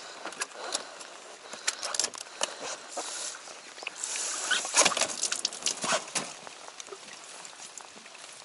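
Clicks, knocks and rustling from handling gear and rain clothing in a small boat, with a louder stretch of splashing water in the open live well about four to five seconds in.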